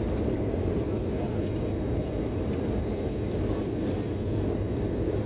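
Steady cabin noise of a jet airliner on descent: a constant low rumble of the wing-mounted turbofan engine and rushing air, heard from a window seat inside the cabin.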